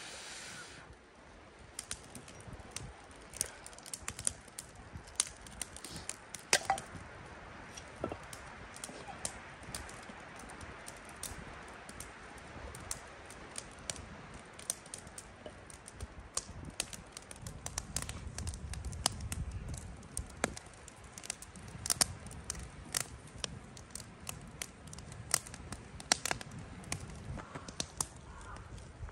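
A freshly lit wood fire of split logs in a steel fire ring, crackling with irregular sharp pops as it catches. A low rumble rises briefly about two-thirds of the way through.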